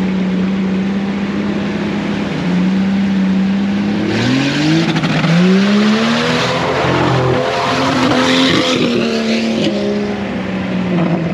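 Vehicle engine running at a steady pitch, then revving up about four seconds in, with several engine tones rising and falling together through the middle before settling back to a steady run.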